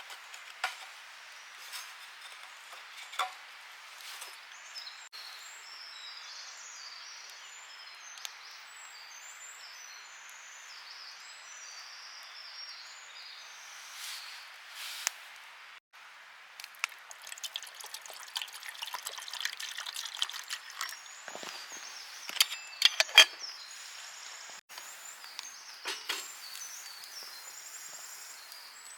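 Wood campfire crackling and popping, with small birds chirping in the background. The crackling gets denser and louder about two-thirds of the way through, with several sharp pops.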